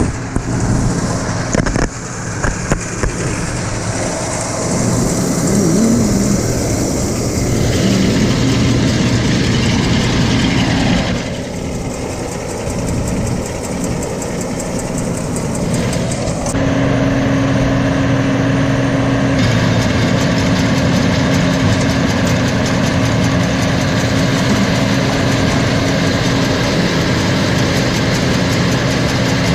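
Farm tractor engine running steadily as it works hay baling, its sound shifting abruptly a few times.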